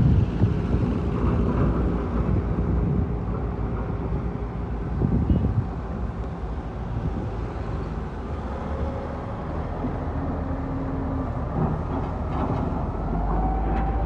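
Heavy diesel dump truck engine running steadily with road and rattle noise, a brief louder clatter about five seconds in.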